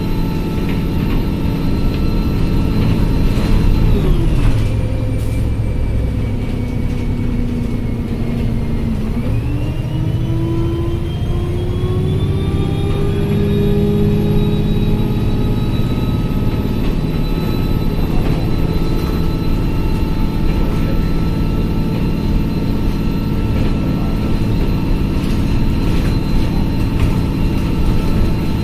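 Alexander Dennis Enviro200 single-deck bus heard from inside the cabin: engine and drivetrain running with a steady whine. The whine drops in pitch about four seconds in as the bus eases off, then climbs again from about nine seconds as it pulls harder, and settles to a steady pitch.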